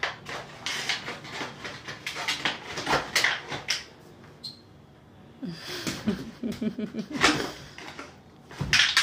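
Rottweiler playing with a green rubber toy on a bed: a string of short knocks and rustles from its mouth, paws and the toy, with a low wavering play growl about five and a half seconds in.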